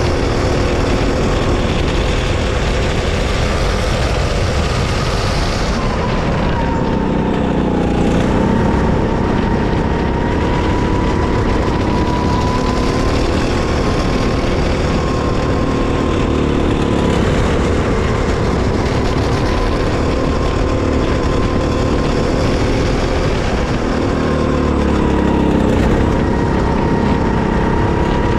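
Go-kart engine running hard at racing speed, heard from the driver's seat. Its pitch drops as the kart slows for corners, about six seconds in and again near the end, then climbs back up.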